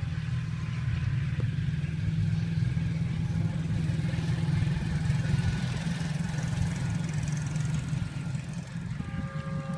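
GEU-40 diesel locomotive running under way: a deep, steady engine rumble with the rush of the moving train over it. About nine seconds in, its multi-tone horn sounds a steady chord.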